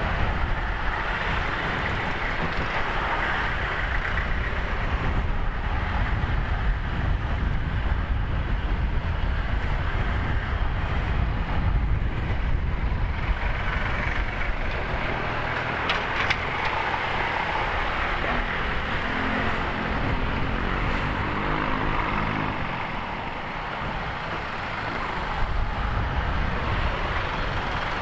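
Honda Click 150i scooter on the move: steady rumble of wind on the action-camera microphone mixed with the engine and road noise, with traffic around. A humming tone rises out of the noise for a few seconds past the middle.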